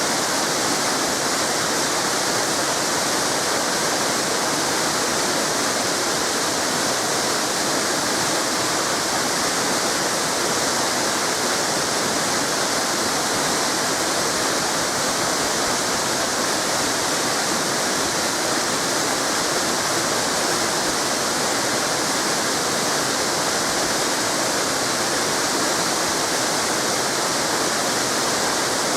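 Waterfall cascades pouring steadily, an even unbroken rush of falling water.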